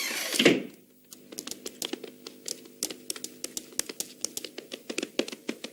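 A short whoosh, then a fast, irregular run of light clicks, several a second, like typing on a typewriter or keyboard.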